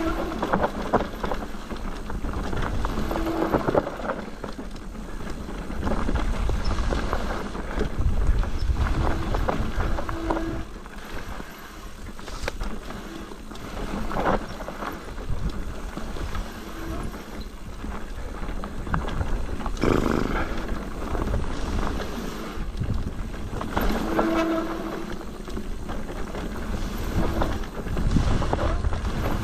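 Mountain bike riding down a rough, rocky trail: tyres rumbling and crunching over stones and the bike rattling with the jolts, with scattered sharp knocks.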